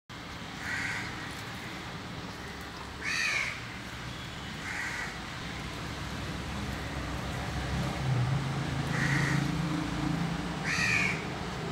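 Crow cawing: five short, harsh caws spaced a few seconds apart. A low steady hum joins for a few seconds in the second half.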